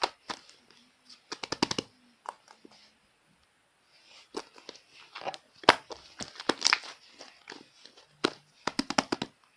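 Slime mixed with shaving foam being squished and pulled by hand, heard as bursts of crackly clicks and pops with short pauses between them.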